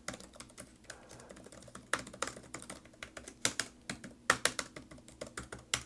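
Typing on a Dell XPS 14 (2024) laptop keyboard, whose keys have 1 mm of travel: a quick, uneven run of key clicks, with a few louder keystrokes in the middle.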